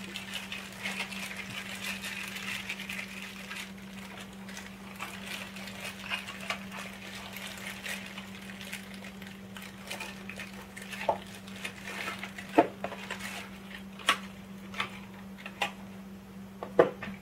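Clear plastic bag crinkling as an AC power adapter is handled inside it, then scattered sharp clicks and taps as the adapter and a small cardboard box are set down and picked up on a tabletop.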